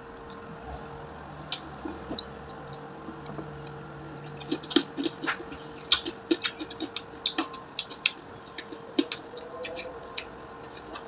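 Crispy lechon kawali (deep-fried pork belly) crackling being broken apart by hand and eaten close to the microphone: a quick, irregular run of sharp crackles, thickest in the middle, over a faint steady hum.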